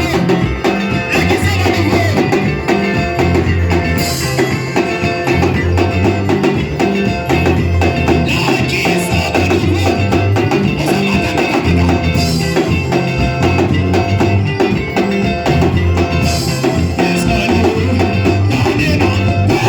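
Live church worship band playing an upbeat number with bass, drum kit and guitar, and some singing, at a steady loud level; cymbal crashes come about every four seconds.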